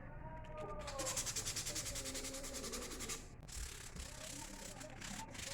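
Sandpaper rubbing over a wooden workpiece in a fast, rasping run from about a second in, easing into shorter, scattered strokes after about three seconds.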